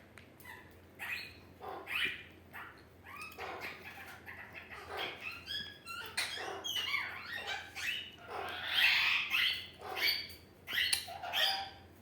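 Pet parrot giving a run of short, bark-like calls, one or two a second, rising and falling in pitch, with a louder, longer call about nine seconds in.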